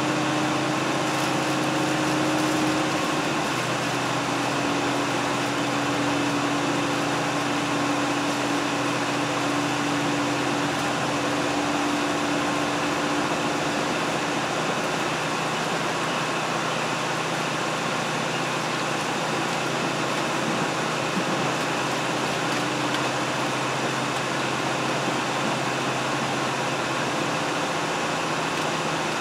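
Diesel train running along the line, heard from inside the car: a steady engine hum over even running noise, the engine tone easing off about halfway through.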